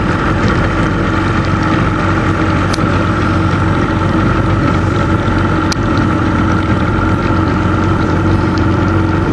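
Small motorboat's engine running steadily as the boat cruises, an even, unchanging hum.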